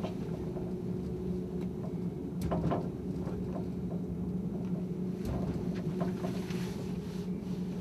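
Emosson mini-funicular car running along its track: a steady low hum with a few short clicks and knocks, most of them about two and a half seconds in and again between five and six and a half seconds in.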